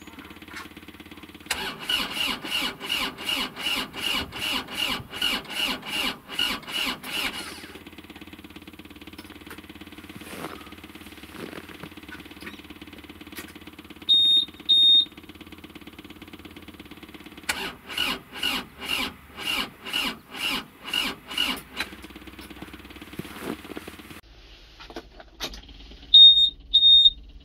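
Hitachi ZW40 wheel loader's diesel engine being cranked by its starter in −11 °C cold. It turns over in an even pulse of about two and a half compression strokes a second, for about six seconds and then again for about four, and does not catch: a failed cold start on a weak battery. Short high double beeps from the cab's warning buzzer sound between and after the attempts.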